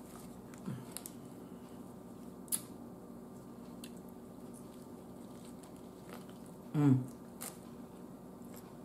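Close-up eating sounds of a person biting into and chewing a Subway sandwich: quiet chewing with a few short mouth clicks, and a short hummed "mm" about seven seconds in, the loudest sound.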